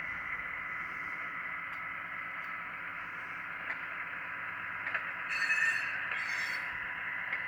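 Soundtraxx Soundcar in a model caboose playing rolling-stock sound: steady running noise with faint rail-joint clicks. About five and six seconds in come two short, louder high-pitched bursts.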